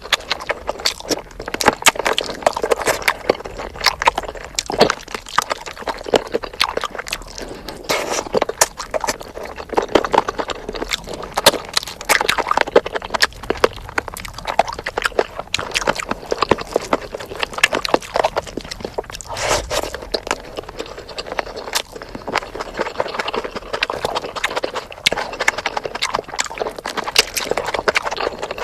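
Close-miked eating of spicy chicken: continuous chewing and crunching, with irregular biting clicks and snaps several times a second.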